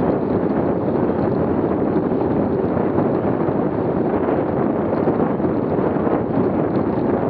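Steady wind rushing over the microphone of a camera mounted on a bicycle riding at about 20 mph.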